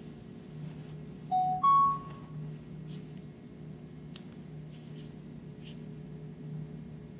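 Samsung Gear S3 smartwatch giving a rising two-note beep about a second and a half in, the signal that its heart-rate measurement has finished. A sharp click follows about four seconds in, over a steady low hum.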